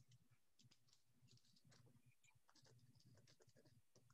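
Near silence: room tone with faint, scattered clicks.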